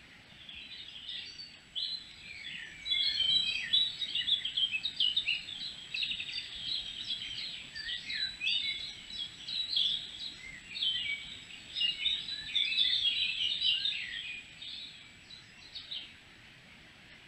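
A songbird singing a long, fast, twittering warble of varied high chirps and trills, starting about half a second in and stopping shortly before the end.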